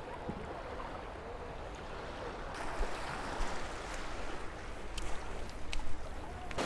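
Small waves lapping at the sandy shoreline with a steady rush of wind on the microphone, growing a little fuller about halfway through. A few light clicks and taps come in the second half.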